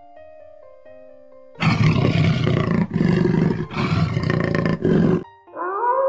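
A big cat roaring, four loud rough roars in a row over about three and a half seconds, after a moment of faint music tones. Near the end a rising tone starts and then holds steady.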